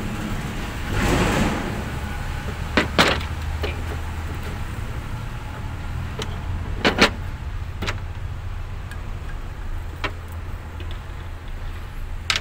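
Sharp clicks and knocks of plastic and metal parts being handled as a diesel fuel filter and water separator housing is taken apart with a small tool. The clicks come in a pair near three seconds and another pair near seven, with single ones later, over a steady low hum and a short rush of noise about a second in.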